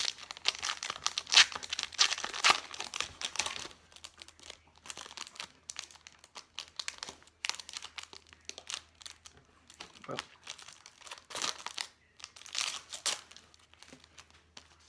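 Foil trading-card pack torn open and crinkled by hand: dense crinkling and tearing over the first few seconds, then scattered short rustles of the wrapper and cards.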